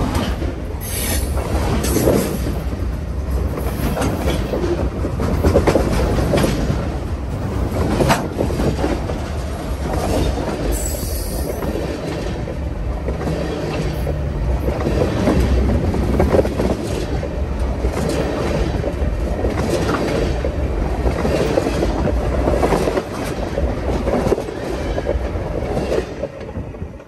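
Freight train cars rolling directly over a microphone lying between the rails: a heavy rumble with wheels clattering over the track, and a few brief high wheel squeals, about a second in and again near the middle. The noise falls away near the end as the last car clears.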